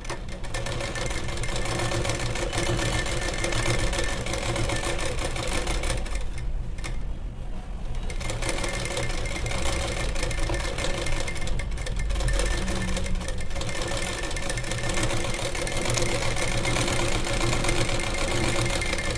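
Household sewing machine running steadily as it stitches a seam through blouse fabric, with a brief pause about six and a half seconds in before it runs on.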